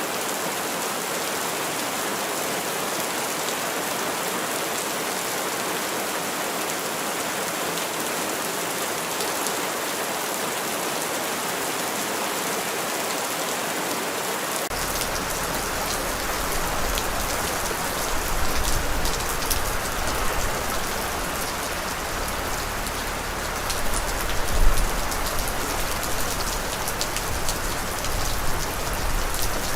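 Steady heavy rain falling, an even hiss of many drops. About halfway through, a deep low rumble cuts in suddenly, and the rain then swells louder and softer, strongest a little past three quarters of the way.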